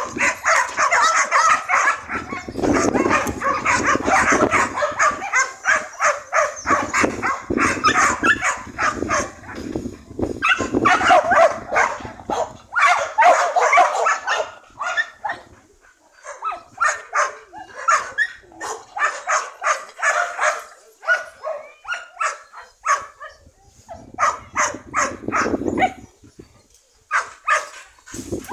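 Dogs barking and yipping over and over in dense volleys, thinning out after about halfway with short gaps between barks.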